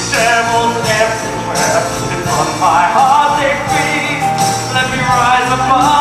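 Stage musical's live band playing an instrumental passage, a melody line sliding in pitch over sustained chords, with jingling percussion shaken in the background.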